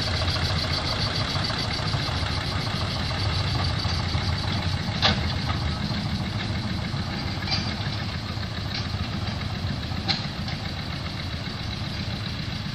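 Small narrow-gauge diesel locomotive, a 1939 Hudson Hunslet, running steadily as it pulls away, fading slowly. A few sharp clicks come about five, seven and a half and ten seconds in.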